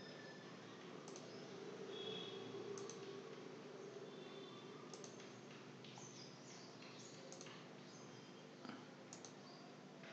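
Faint room tone with scattered soft, sharp clicks, like a computer mouse being clicked, and a few faint short high-pitched chirps.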